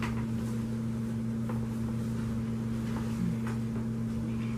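A steady low mechanical hum with two constant tones, with a few faint soft clicks of eating.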